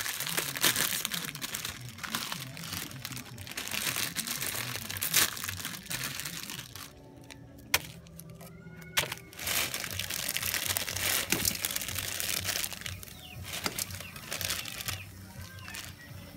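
Plastic instant-noodle wrappers crinkling and tearing as packets of pancit canton are handled and opened. A quieter stretch in the middle holds a few sharp clicks before the crinkling starts again.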